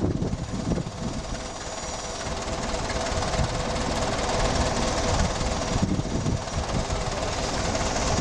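Clark forklift's engine running steadily, with a constant hum held under it.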